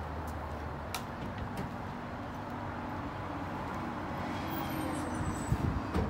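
Vehicle engine idling against a steady traffic hum, with a sharp click about a second in and a few low thumps near the end.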